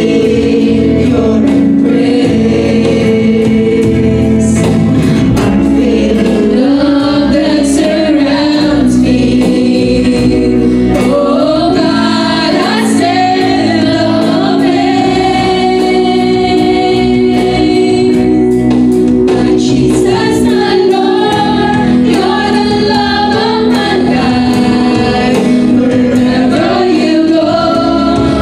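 Live praise and worship music: a woman singing lead with backing singers over electric and acoustic guitars, with held, wavering sung notes.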